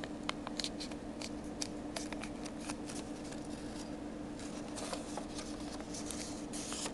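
A square of origami paper being folded and creased by hand: scattered light crinkles and clicks of paper, over a steady low hum.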